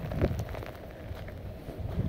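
Wind rumbling on a phone's microphone, easing after about half a second, with faint scattered ticks.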